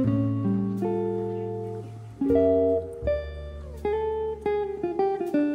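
Background music: a plucked guitar plays a melody of short, decaying notes over a steady bass line.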